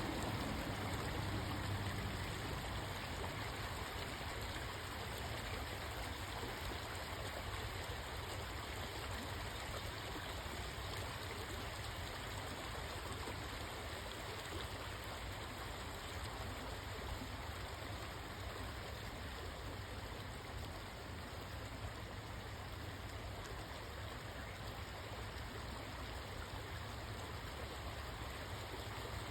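Steady rushing background noise with a low rumble underneath; no distinct call stands out.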